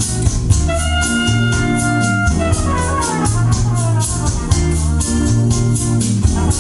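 Music with organ-like keyboard chords, a heavy pulsing bass line and a steady beat, with a quick run of falling notes about two and a half seconds in. It plays back through a hi-fi of Wharfedale Diamond 9.5 floorstanding speakers and a Wharfedale SW-150 subwoofer driven by an Onkyo TX-NR616 receiver, after an Audyssey 2EQ room calibration.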